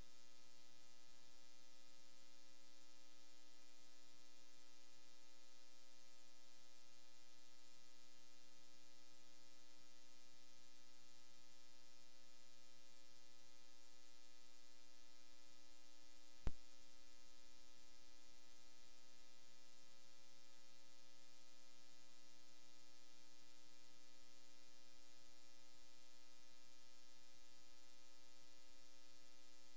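Steady electrical mains hum with a faint hiss in the audio feed. A single sharp click about halfway through.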